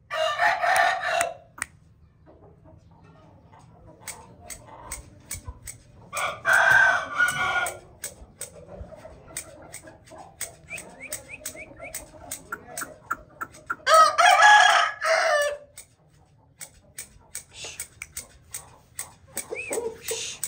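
Aseel rooster crowing three times: at the start, about six seconds in and about fourteen seconds in, each crow about a second and a half long. Between the crows there are soft clucks and quick clicking sounds.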